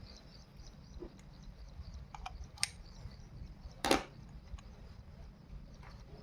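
A few sharp clicks and knocks, like tools or parts being handled, the loudest about four seconds in, over a low steady rumble. Faint insect-like chirping runs through the first part.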